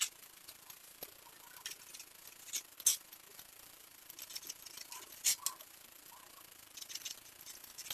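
A serrated knife sawing through bread crusts on a wooden cutting board: faint, irregular scrapes and light taps, a few louder strokes among them.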